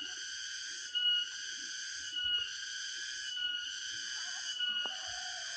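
Cicadas (tonggeret) singing: a steady high buzz that breaks off briefly about every second and a quarter, each phrase starting again with a brief louder tone.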